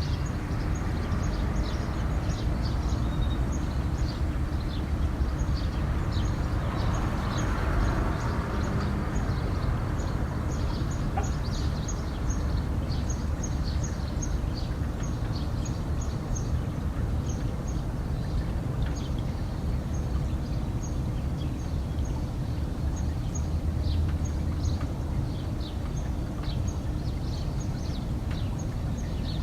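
Small birds chirping rapidly and continuously, with a rooster crowing once about seven seconds in, over a steady low rumble.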